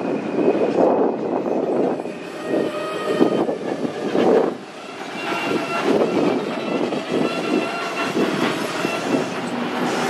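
Freight train being shoved by a switcher, rolling past: the cars' wheels clatter over the rail joints. From a couple of seconds in, thin steady squeals come from the wheels.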